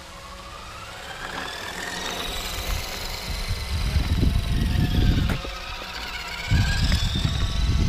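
Electric motor of a radio-controlled car whining as it is driven fast, the pitch rising and falling with its speed, with strong low rumbling in two spells.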